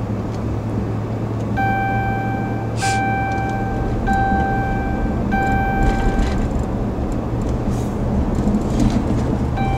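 Steady engine and road drone inside a Ram 1500 pickup's cab while driving. Over it, a beep of one pitch sounds four times in a row, each tone lasting about a second with short gaps between, from about a second and a half in to about six and a half seconds in.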